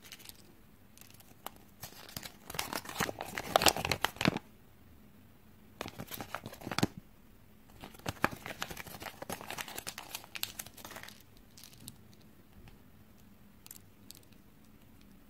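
Kinder Joy toy wrapping and paper instruction leaflet being crinkled, torn and unfolded in several bursts of rustling, loudest about three to four seconds in. Near the end, faint light clicks of small plastic toy pieces being handled.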